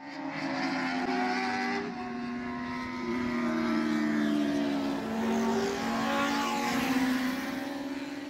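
Several race car engines running at high revs together, their pitches drifting slightly up and down, fading out at the very end.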